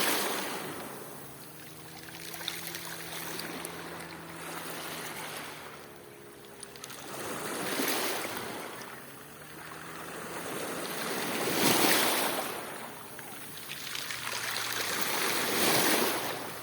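Black Sea waves washing onto the shore, the surf swelling and ebbing every few seconds. The loudest wash comes about twelve seconds in.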